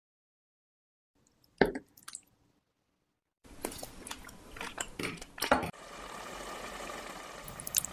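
Two light clinks of cutlery on a ceramic dish, then a run of fork clicks and chewing sounds. From about six seconds in, chicken and tomato sauce simmering steadily in a pot.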